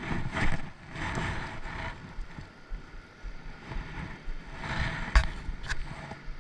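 Wind buffeting the microphone in the rain, with rustling handling noise in the first couple of seconds and two sharp clicks about half a second apart near the end.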